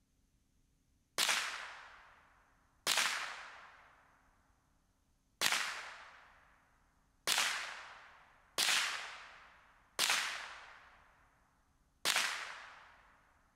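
Seven single shots from a Ruger 10/22 .22 rimfire rifle, fired at uneven intervals of one to two and a half seconds. Each sharp crack trails off over a second or so.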